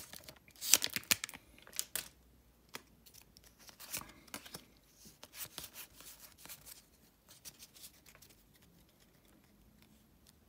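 Foil Pokémon TCG booster pack crinkling as it is torn open, loudest about a second in. A run of light clicks and rustles follows as the cards are pulled out and handled, fading to faint handling near the end.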